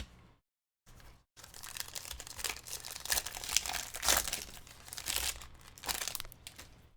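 Foil wrapper of a trading-card pack being torn open and crinkled: a dense crackling that starts about a second and a half in and stops abruptly just before the end.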